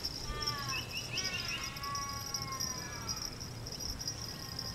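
Insects buzzing steadily in a high, even drone. Over it, in the first three seconds, a few bird calls sound: a quick run of short chirps and several drawn-out arching cries.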